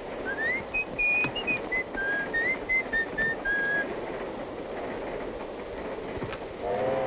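A person whistling a short tune of gliding notes over the steady rumble of a train running. Near the end a steam train's whistle starts, a steady chord of several tones.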